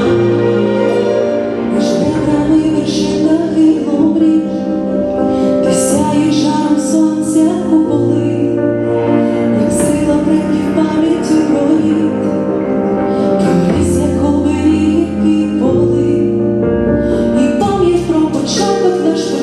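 A woman singing a song over instrumental accompaniment with sustained bass notes that change every few seconds.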